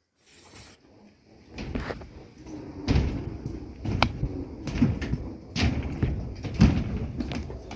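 A run of irregular knocks and thumps, roughly one every half second to a second, over low rumbling handling noise.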